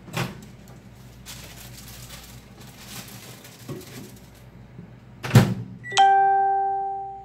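Handling knocks, then a microwave oven door shutting with a thump about five seconds in, followed by a single chime that rings and fades over about a second.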